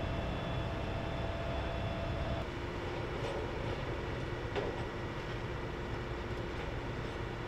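Steady low rumble of idling vehicle engines at the scene, with a constant hum over it and a small sharp click about four and a half seconds in.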